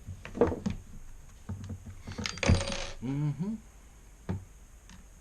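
Small metal tools clinking and rattling as they are handled on a table: a few scattered clicks, then a dense metallic clatter about two seconds in, and one more click near the end.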